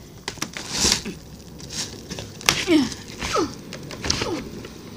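Horizontal window blinds rattling and clicking as a window is worked open by hand, with a sharp knock about halfway through. A few short falling vocal grunts come in the second half.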